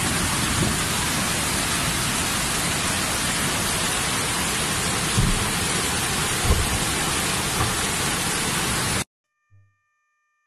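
Muddy flash floodwater rushing down a street in a torrent: a loud, steady rush with a couple of dull thumps about five and six and a half seconds in. It cuts off suddenly about nine seconds in.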